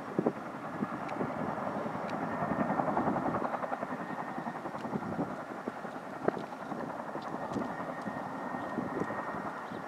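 CH-47 Chinook tandem-rotor helicopters flying in low on approach: the rapid chop of the rotors over a steady rushing wash, swelling a little about three seconds in.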